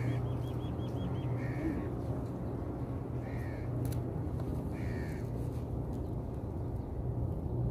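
A crow cawing, four short calls about a second and a half apart. Just after the first call, a quick run of high chirps from another bird, all over a steady low hum.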